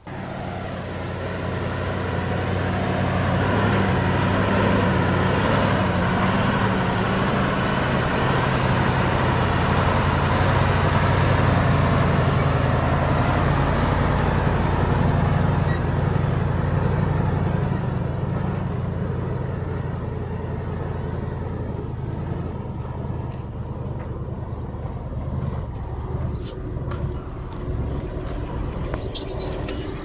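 Heavy diesel engine running steadily. It comes in suddenly, is loudest in the first half and eases off in the second half. A few sharp clicks and one short knock come near the end.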